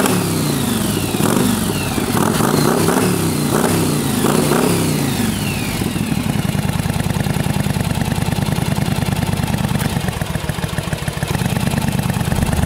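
A 1981 Yamaha XS400 Special's twin-cylinder engine, revved in about six quick throttle blips over the first five seconds, then settling into a steady idle. It is running on both cylinders after carburettor work.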